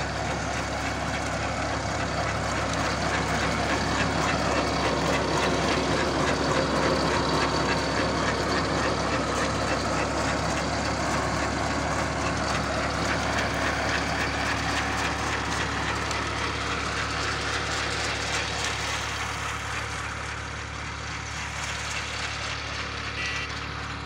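Massey Ferguson 260 tractor's three-cylinder diesel engine running steadily under load, with the clatter of a tractor-mounted potato digger's shaking chain elevator sifting soil and potatoes. It grows a little quieter near the end.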